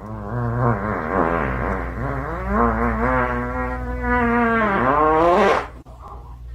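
A pet's long, wavering call, drawn out for about five and a half seconds with its pitch bending up and down, then breaking off near the end.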